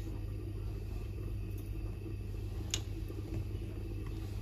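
Steady low hum with one light click about two and a half seconds in.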